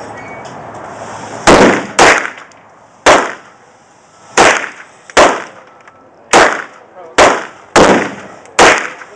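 A string of about nine gunshots fired at a steady, unhurried pace, starting about a second and a half in, each a sharp crack with a short tail.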